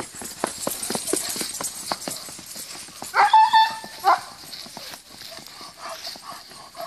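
Hoofbeats of an approaching horse on a dirt track, a run of sharp, uneven clicks. About three seconds in a German shepherd gives a loud, high yelping bark, with a shorter one a second later.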